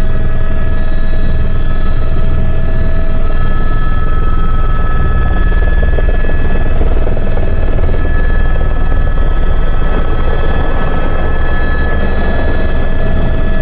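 Helicopter running steadily and loudly, with the low rotor noise under a turbine whine of several steady tones.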